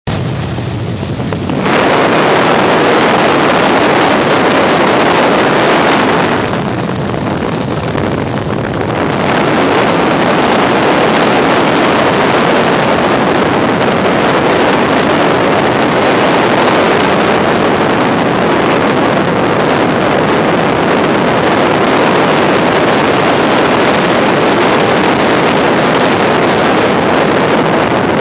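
Helicopter in flight, heard from inside the cabin: a loud, steady rushing noise. For a few seconds about a quarter of the way in it turns a little quieter and duller.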